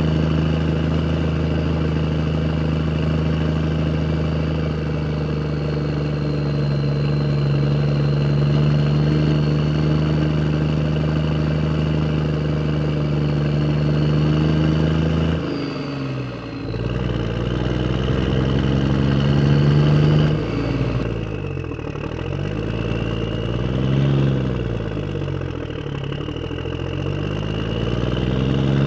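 A motor vehicle engine idling steadily, then revving up and down again and again from about halfway.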